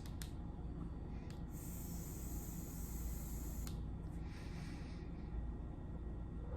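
A person taking a long hit of Delta 8: a hissing inhale of about two seconds, then a softer breathy exhale.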